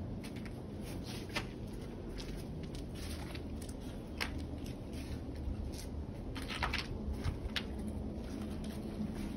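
Footsteps on dry fallen leaves, a few irregular crackles over a low steady rumble.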